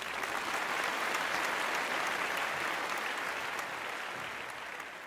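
Applause: a crowd clapping steadily, slowly fading out toward the end.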